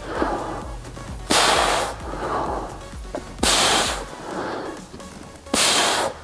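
A man's forceful breathing in time with dumbbell bent-over row reps: three sharp, hard exhales about two seconds apart, with softer breaths drawn in between.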